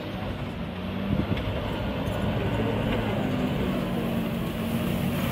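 Wheel loader's diesel engine running steadily under load as it pushes a heap of avalanche snow, with a knock about a second in.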